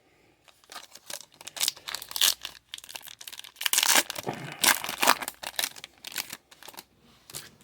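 Wrapper of a hockey trading card pack being torn open and crinkled by hand: a run of irregular tearing and crackling rasps.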